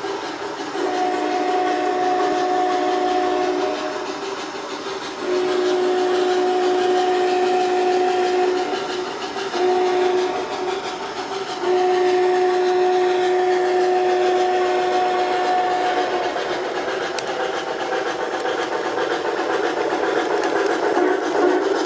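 Sound-equipped model steam locomotive blowing its whistle in four blasts, long, long, short, long: the grade-crossing signal. Under the whistle runs a steady hiss of steam and running noise that grows louder near the end as the locomotives come closer.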